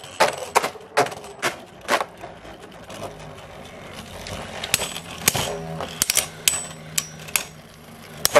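Two Beyblade spinning tops spinning and clashing in a plastic stadium: a run of sharp clicks and clacks as they strike each other, with a faint steady whir between hits. A loud clack near the end comes as one top bursts apart.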